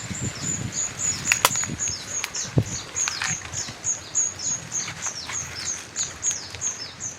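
A small bird calling a rapid, even series of short, high chirps, about three a second, many of them dropping in pitch. A single sharp click sounds about a second and a half in.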